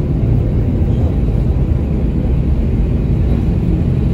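Steady low rumble inside an airliner's cabin as it taxis after landing.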